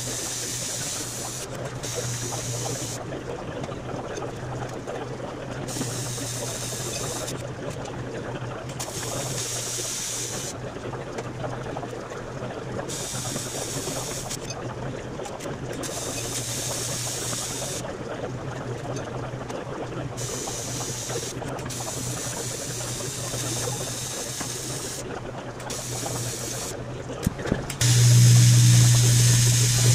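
TIG welding on aluminium sheet: a steady low buzz, with a high hiss that cuts in and out every second or two as the arc is struck and broken. Near the end it becomes much louder.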